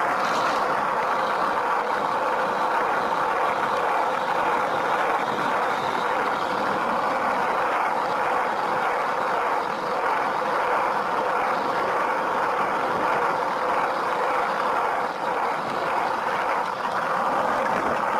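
Steady rolling roar of wheels running fast on asphalt as a skateboard rides downhill.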